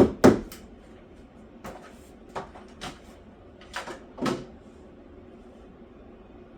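Sharp knocks and taps on the work: two loud ones right at the start, then about half a dozen softer ones over the next four seconds.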